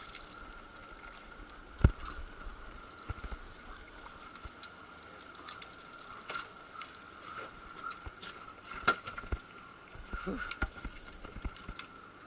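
Scattered knocks and taps of fishing gear against a boat's hull and deck, the loudest a single sharp knock about two seconds in, over a faint steady high-pitched hum.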